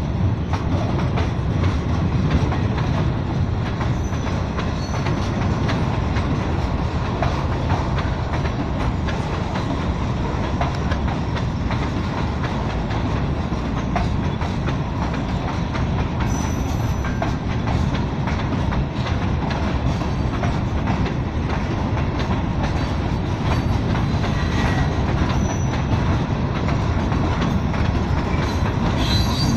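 Wisconsin and Southern freight train's cars rolling steadily past: a continuous rumble with the clickety-clack of wheels over rail joints.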